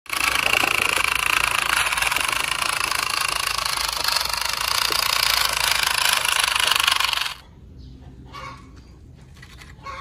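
Small electric motor and plastic gearbox of a toy RC dump truck running as it drives, a loud steady rattling whir that cuts off suddenly about seven seconds in. A few faint clicks of handling follow.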